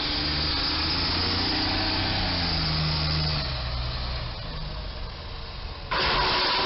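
A military six-wheel cargo truck's diesel engine running as it drives up, its pitch rising and then dropping. About six seconds in, a sudden loud crash with a screeching scrape starts as the truck's tall covered cargo bed strikes the low railroad bridge.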